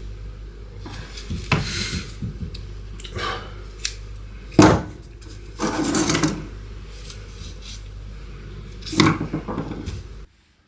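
Parts and hand tools being handled during reassembly: scattered knocks and clatter, the loudest about four and a half seconds in, over a steady low hum that cuts off abruptly near the end.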